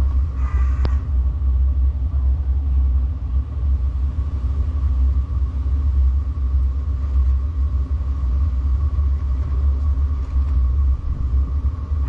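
Diesel air heater running at working temperature after start-up: a steady low rumble with a steady whine from its fan over it.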